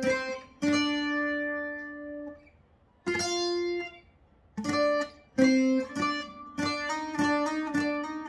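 Twelve-string acoustic guitar picking a melody line in octaves in B-flat: a few spaced, ringing notes with short gaps, then quicker notes in the second half.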